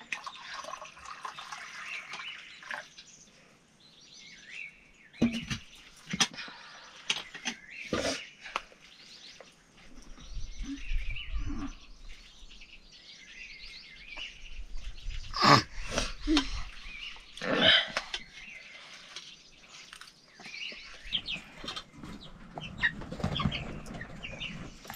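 Chickens clucking and birds chirping, with a few sharp knocks scattered through.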